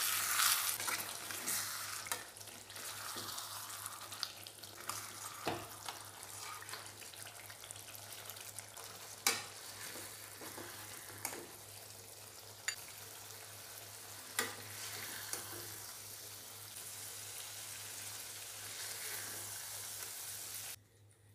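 Paneer masala gravy sizzling in a stainless-steel kadai, with a handful of sharp clicks from a metal spatula against the pan.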